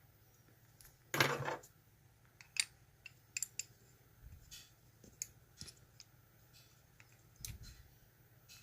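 Small metal parts of a GEGE euro cylinder lock clicking and clinking as it is taken apart by hand: a short rattling clatter about a second in, then scattered light clicks and taps.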